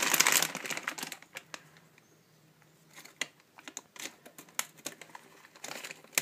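Plastic bags crinkling and a scatter of sharp clicks and taps as a cockatiel picks at the packaging and moves about in a plastic basket. A burst of crinkling in the first second, then separate clicks, with more rustling near the end.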